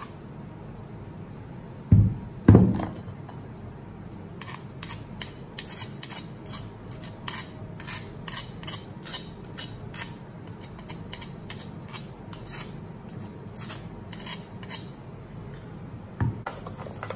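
A stone pestle knocking twice against a stainless steel bowl, then a long run of light clicks and scrapes on the steel as mint-and-sugar paste is scraped off into the bowl, with another knock near the end.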